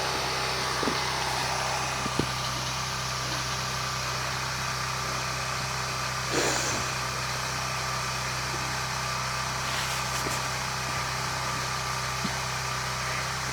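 Steady engine-like hum running throughout, with a brief soft thud about six seconds in.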